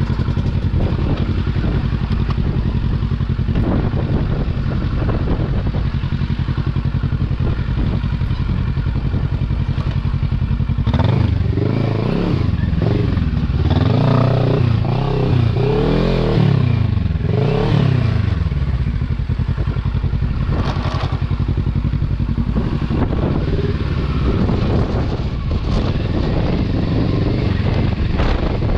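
Kawasaki Versys 650 parallel-twin engine running at low revs. In the middle it revs up and down several times, its pitch rising and falling, before settling back to a steady low run.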